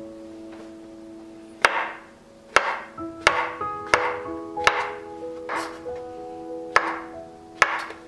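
A chef's knife slicing button mushrooms on a bamboo cutting board: about eight sharp knocks of the blade on the board, unevenly spaced and starting about a second and a half in. Soft background music plays underneath.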